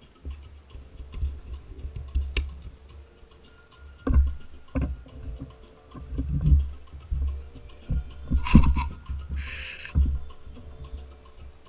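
Handling noise on a camera mounted to a toddler tricycle: irregular low thuds and knocks as hands work at the seat's harness straps, with a few sharp clicks and two short rustles near the end.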